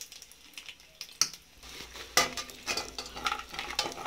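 Cashews and raisins frying in a little ghee in an aluminium pan, with a soft sizzle. A spoon stirs and scrapes them against the pan, giving scattered clicks from about a second in that come thick and fast after about two seconds.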